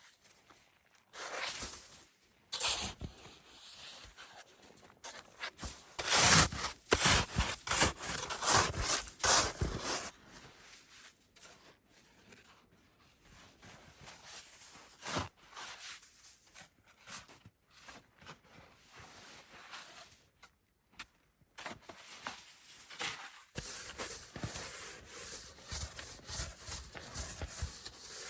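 Irregular crunching and scraping of packed snow, dense and loud for several seconds near the start, then sparser and quieter.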